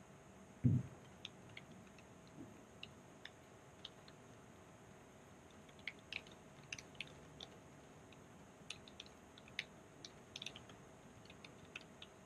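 Quiet, irregular clicking of keys being typed on a Dell laptop keyboard, with one low thump about a second in.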